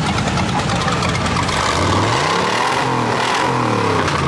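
Car engine idling, then revved up about two seconds in and dropping back down near the end; the sound cuts off suddenly.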